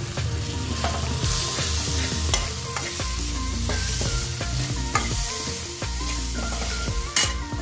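Chopped onion and bell peppers sizzling in hot oil in a steel kadhai while a steel ladle stirs them, with a steady frying hiss and short clicks of the ladle against the pan.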